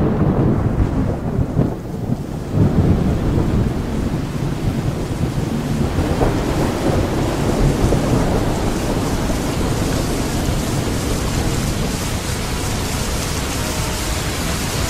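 Rainstorm: low thunder rumbles in the first couple of seconds, then steady heavy rain that grows fuller over the next few seconds and carries on.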